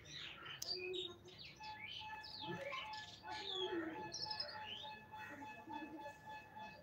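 Small birds chirping, many short quick calls and rising and falling notes overlapping. A faint steady tone comes in about a second and a half in and holds.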